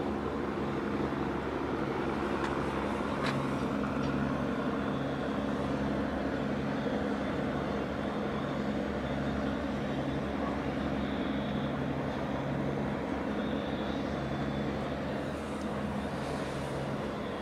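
Steady low drone of ships' diesel engines working across harbour water, with a faint regular pulsing in the hum.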